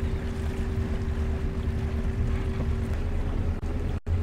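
Sailing yacht's inboard engine running slowly, a steady low rumble with a faint steady hum, and wind buffeting the microphone. The sound drops out for an instant near the end.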